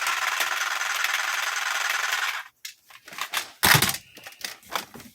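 A toy sniper rifle gives off a steady, rapid rattling buzz that cuts off suddenly about two and a half seconds in. Handling knocks and clicks of the plastic toy follow, with one louder knock near the end.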